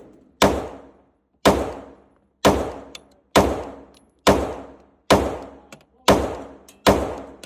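Glock 45 9mm pistol firing eight shots at a steady pace of about one a second, each shot followed by a long fading echo.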